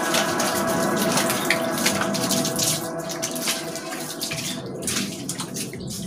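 Water from a garden hose pouring and splashing into a fish pond, a steady running-water sound.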